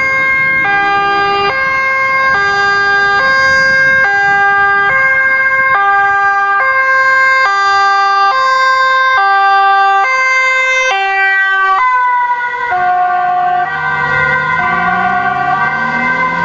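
Ambulance two-tone siren on an urgent run, alternating high and low notes, each held just under a second. Near twelve seconds in the pitch slides down as the ambulance passes, and the two-tone carries on lower, with the vehicle's engine audible underneath.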